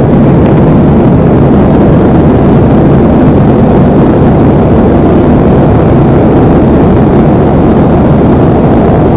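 Jet airliner cabin noise in flight: a loud, steady low rumble of the engines and rushing air, heard from inside the cabin.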